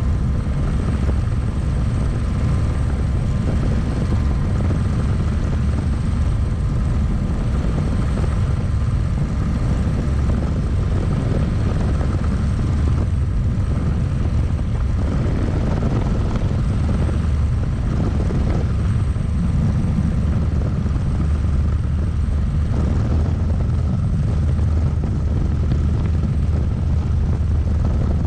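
Single-seat turbine-powered experimental helicopter in flight, heard from inside the cockpit: a steady low drone from the rotor and engine, with a thin steady high whine over it.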